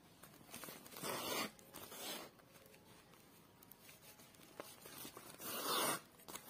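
Woollen yarn and a needle being drawn through a woven polypropylene plastic sack, a scratchy zip-like rustle with each pull. Three main pulls, the loudest near the end.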